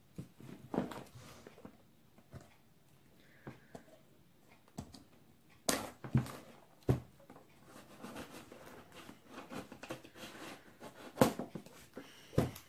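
Cardboard box being handled and cut open with scissors, the blades slitting the packing tape, with scattered knocks and scrapes of the box against the table; a few sharper knocks stand out, the loudest near the end.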